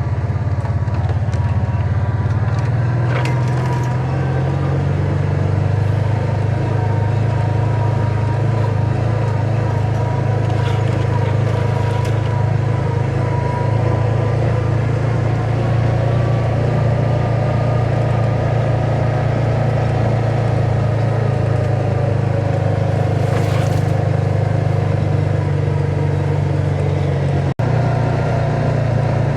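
Side-by-side UTV engine running at a steady speed while riding, a constant low drone.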